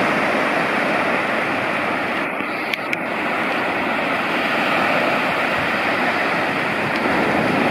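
Sea surf: small waves breaking and washing through the shallows, a steady rushing hiss.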